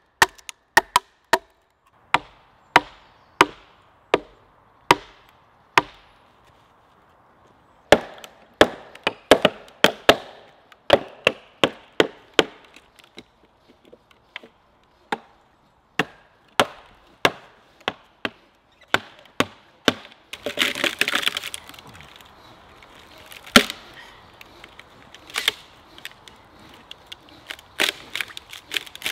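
Wooden wedges being hammered into a log with a wooden mallet and an axe to split it lengthwise: sharp knocks, steady at first, then a pause and a quicker run of blows. About 21 seconds in the wood gives with a crackling, splintering tear as the split opens, followed by scattered knocks.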